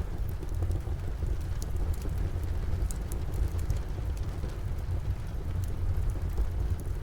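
Wood fire crackling with scattered small pops, over a steady hiss of rain and a constant low rumble.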